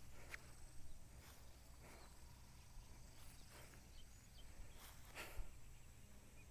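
Quiet outdoor ambience with soft footsteps on a trail about once a second, and a few faint high chirps.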